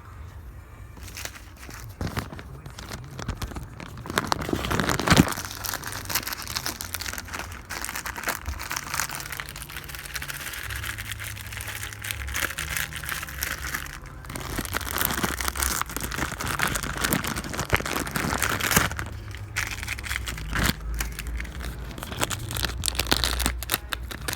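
Packaging crinkling and rustling irregularly as a new oil pickup gasket is handled.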